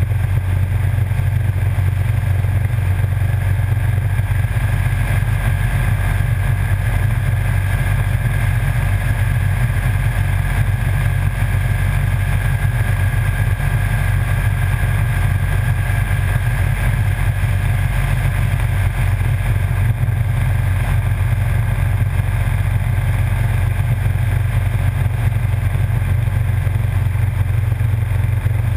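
Motorcycle cruising at a steady speed on a road: a steady low rumble of engine, wind and road noise, with no change in pace.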